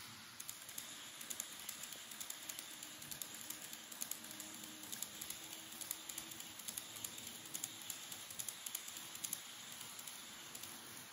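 Model train of the 583 series running on its track: a soft rolling hiss under quick, irregular clicks from the wheels crossing the rail joints, with a faint motor hum.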